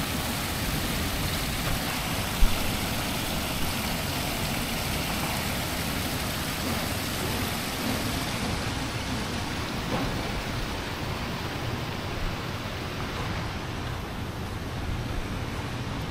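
Steady rush of water pouring from a pool's rock waterfall and slide and splashing into the pool, with a single sharp knock about two and a half seconds in.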